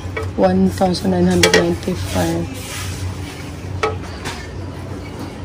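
A voice talking, with a sharp clink about one and a half seconds in and another near four seconds, as metal kitchenware is handled, over a steady low hum.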